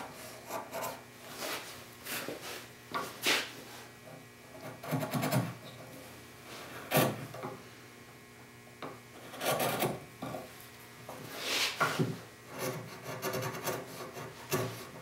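Sharp bench chisel paring end grain off a Sipo (African mahogany) tenon by hand: irregular short scraping strokes of steel shaving wood, with a few sharper ticks.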